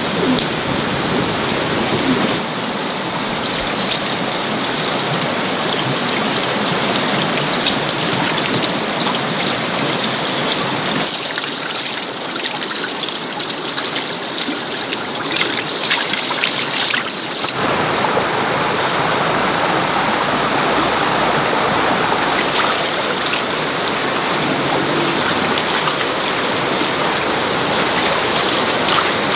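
Steady rush of running stream water, changing abruptly in tone about 2, 11 and 17 seconds in.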